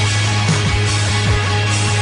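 Loud rock music: electric guitar, bass and drums playing on together.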